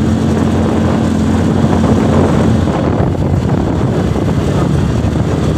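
ATV (quad bike) engine running steadily while riding, with a loud continuous rumble and rush. A steady low hum drops away about halfway through.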